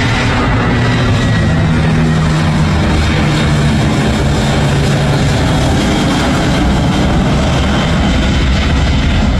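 Airliner engines running loud and steady at close range: a dense, continuous noise with a low hum that shifts slightly in pitch.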